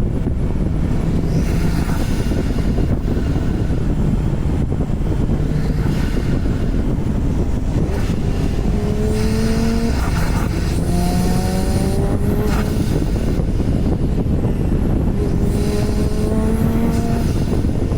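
Porsche 991 Turbo's twin-turbocharged flat-six under acceleration, its note rising in pitch through three pulls in the second half, over a heavy rumble of road and wind noise. A thin high turbo whistle rises with two of the pulls.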